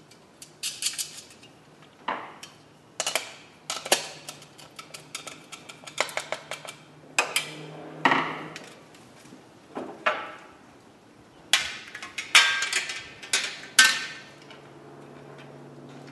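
A metal bicycle mudguard and its wire stays being handled and fitted, clinking and rattling in a dozen or so short irregular bursts. A low steady hum sets in near the end.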